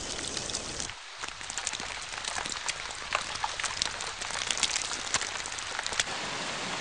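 Rain falling, with many separate drops ticking sharply over a steady hiss. The sound dips briefly about a second in.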